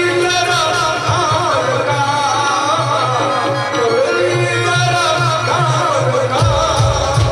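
Marathi tamasha folk song performed live: a singer's voice carrying a wavering melody over the quick, steady beat of a dholki drum.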